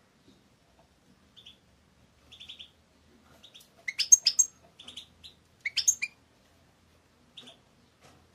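European goldfinch singing: short twittering trills and sharp high notes in scattered phrases with gaps between, beginning after about a second and a half, the loudest notes in two clusters in the middle.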